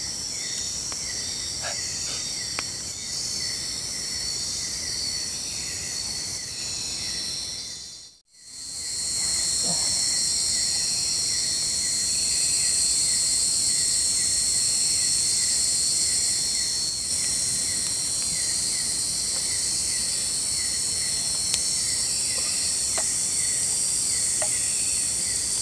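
Night insect chorus: a dense, steady high buzzing with a quick repeated chirp running through it. The sound drops out briefly about eight seconds in, then returns a little louder, with a few faint snaps.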